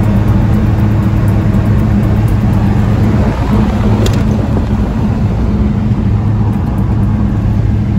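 Volkswagen Kombi van under way on the road: a loud, steady engine drone over road noise.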